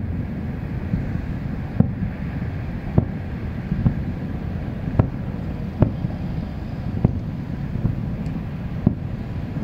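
Distant aerial fireworks going off as short dull bangs about once a second, over steady wind rumble on the microphone.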